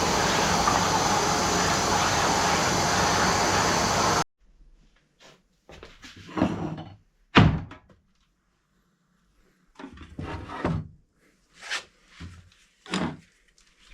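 A loud, steady rushing noise that cuts off suddenly about four seconds in, then a series of separate wooden thunks and knocks from dresser drawers and parts being handled, the loudest a few seconds after the noise stops.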